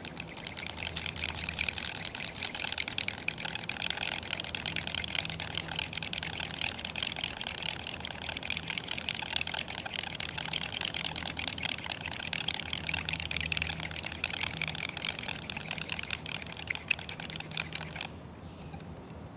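Hand drill friction fire-making: a yucca spindle tip spun back and forth between the palms in a burned hole in a wooden fireboard, a fast, continuous scratchy rubbing of wood on wood. A high squeak rides on it and it is loudest in the first few seconds, then it stops suddenly near the end. This is the friction that heats the wood to make an ember.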